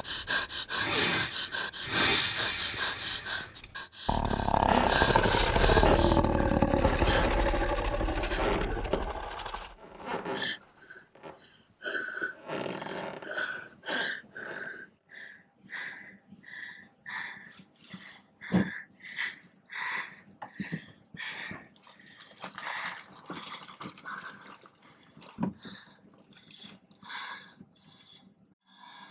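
A deep, loud growl with sliding pitch for about the first ten seconds, then a run of short, quick breaths or whimpers, one or two a second, from a frightened person.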